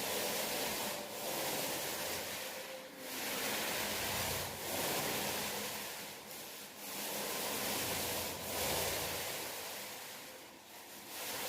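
Wet paint being spread on a wall in long repeated strokes: a steady rubbing hiss broken by short pauses every second or two.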